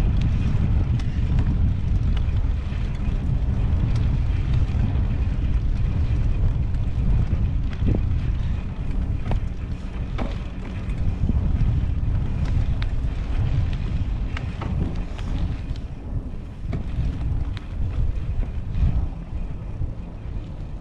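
Wind buffeting the microphone while riding a bicycle, a heavy low rumble that rises and falls, with scattered small clicks and rattles.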